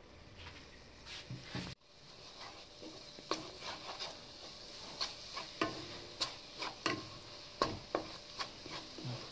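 Wooden spatula stirring grated coconut into hot jaggery syrup in a nonstick kadai: repeated scrapes and taps against the pan, one or two a second from about two seconds in, over a faint steady sizzle.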